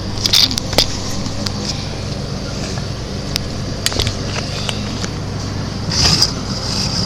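A steady low engine-like hum in the background, with scattered clicks and short rustles of packets and bowls being handled, a bigger rustle about six seconds in.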